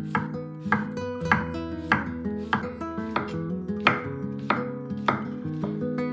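Acoustic guitar background music, strummed with a steady beat of sharp strokes a little under twice a second.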